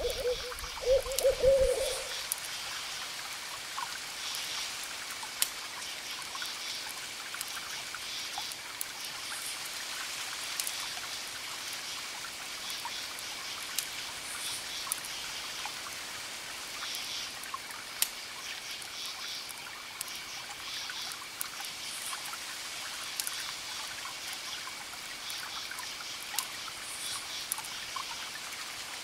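An owl hoots in the first two seconds, the loudest sound. Under it a wood fire crackles and pops with scattered sharp snaps over a steady hiss, and faint high chirping repeats every couple of seconds.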